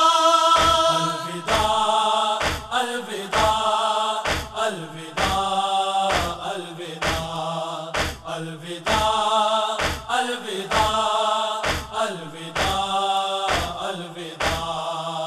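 Men's voices chanting a noha (Shia lament) in unison over rhythmic chest-beating (matam), just under two beats a second.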